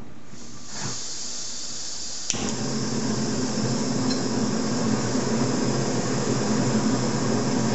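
Camping gas stove on a screw-top canister: gas hisses from the opened valve, a sharp ignition click comes about two seconds in, and the flame catches and the burner runs with a steady rushing noise.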